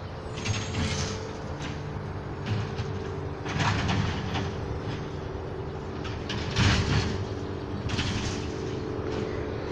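Garbage truck running steadily, heard from across the street, with several short bursts of hissing and clattering from its working gear.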